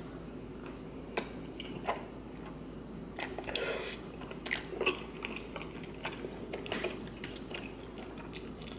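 Close-up eating sounds: a person biting into and chewing thick, chewy noodles and rice cakes in spicy sauce, with many short wet mouth clicks and smacks.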